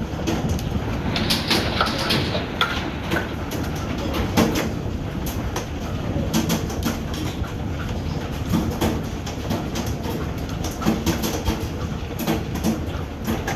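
Hailstones pelting down in a dense, irregular clatter of many small hits over a steady rumble.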